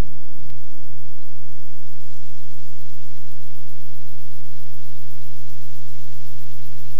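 Loud, steady electrical hum with a constant hiss over it, unchanging throughout.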